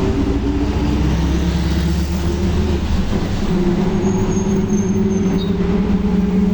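Volkswagen 17-230 OD Euro V bus driving under way, its drivetrain giving a steady pitched drone with the loud differential growl that marks a worn or noisy differential. About three seconds in the deep low rumble fades and the pitch shifts, then holds steady.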